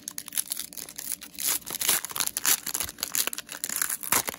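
Foil Pokémon booster pack wrapper crinkling and tearing as hands pull it open: a dense run of sharp crackles.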